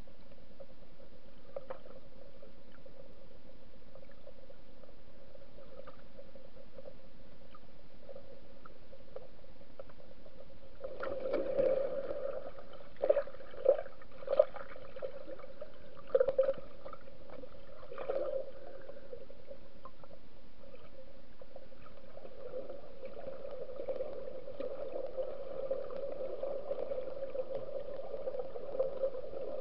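Muffled underwater audio from an action camera in its waterproof housing: a steady low hum, a run of sharp knocks and bumps from about 11 to 18 seconds in, then a rougher, fluctuating water noise over the last several seconds.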